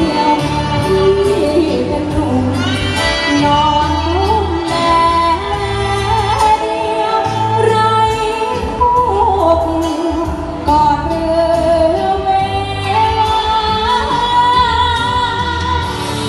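Live Thai luk thung song: a solo singer's amplified voice carrying the melody over a backing band with a steady bass beat.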